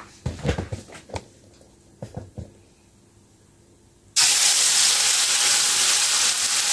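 A few light knocks and clicks as the blender jar is handled. Then, about four seconds in, blended turmeric spice paste poured into hot oil in a wok starts sizzling suddenly and loudly, a steady frying hiss.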